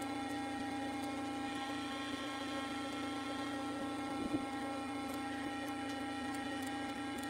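Steady machine hum made of several even tones, unchanging throughout, with one faint click a little after four seconds in.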